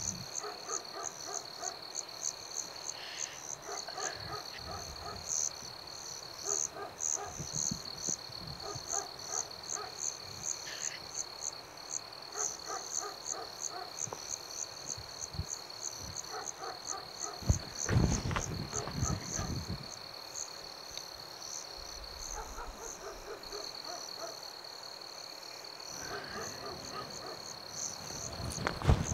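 Night ambience of frogs croaking in repeated short bunches over a steady, high, continuous insect trill. About 18 seconds in there is a brief, louder low noise lasting about a second.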